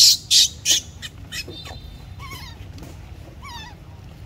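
Newborn baby monkey crying in distress: a run of shrill, harsh screeches about three a second that stop about a second in, then two quieter wavering squeals.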